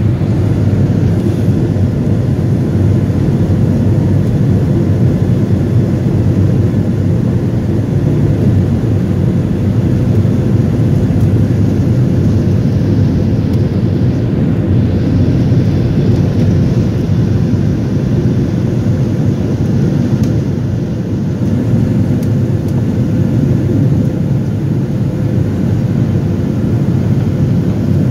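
Boeing 737 cabin noise during takeoff, heard from a seat by the wing: the jet engines at takeoff power make a loud, steady rumble, with a faint hum held under it. The rumble eases slightly for a moment about twenty seconds in.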